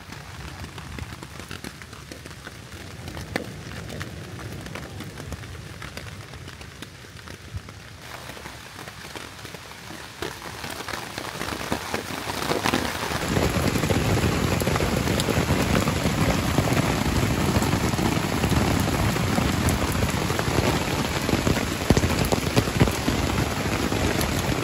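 Rain falling, dense with individual drops, that turns into a much louder downpour about halfway through.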